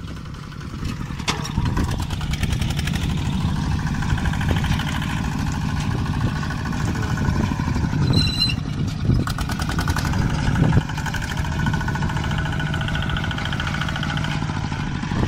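Small homemade tractor's engine running steadily under load as it pulls a disc plough through the soil.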